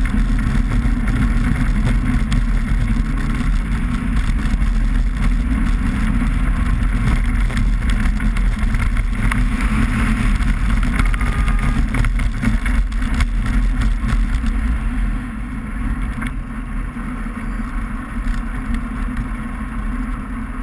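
2000 Subaru Impreza 2.5RS driving on lake ice on studded tyres: its flat-four engine running steadily under the rush of tyre and wind noise, picked up by a camera mounted outside on the car body. The sound drops noticeably about three-quarters of the way through and stays lower.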